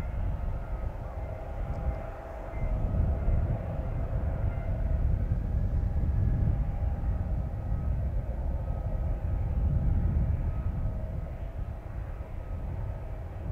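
Steady airport apron noise around a parked Boeing 767: a low, wavering rumble with faint steady whining tones above it.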